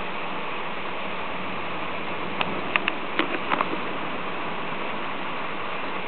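A steady hiss of storm noise, with a quick run of about seven sharp clicks a little after halfway.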